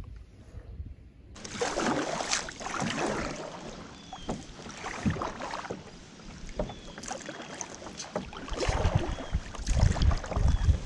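Kayak paddling: the paddle blades dipping and splashing in the water in uneven strokes, starting about a second in, with wind rumbling on the microphone near the end.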